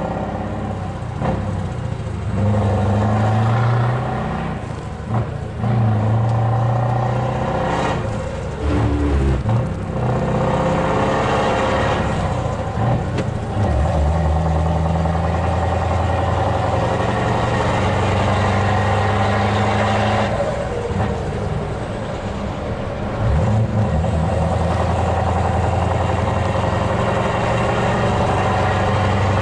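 Scania V8 truck engine heard from the cab, pulling through the gears as the truck accelerates. Its low note climbs and drops back several times at the gear changes, then holds steady at cruising speed near the end.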